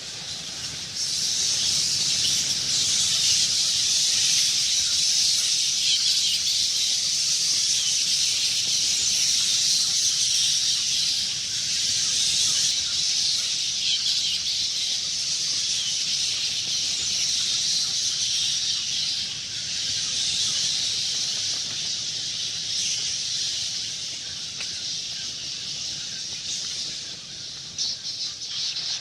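A swarm of bats chittering: a dense, unbroken mass of high-pitched squeaks and chatter. It grows louder about a second in and eases a little near the end.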